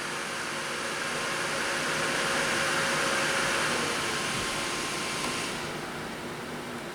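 Cooling fans of a freshly built desktop PC whirring at its first power-on, with a faint steady hum under the rush of air. It swells slightly, then gets quieter and duller from about five and a half seconds in as the fans slow.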